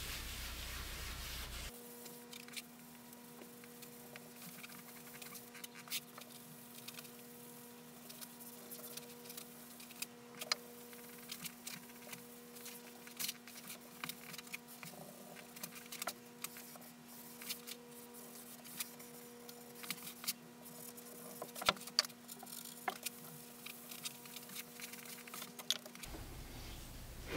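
Cloth wiping a finish onto a birch plywood panel: faint rubbing with many scattered small clicks and taps, over a steady electrical hum.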